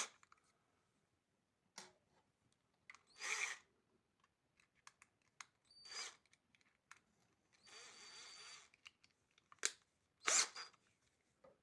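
Tool handling: scattered clicks and short rustling bursts as a cordless drill/driver and screws are readied for driving into a drawer slide. There is one steady stretch of noise about a second long roughly two-thirds of the way in.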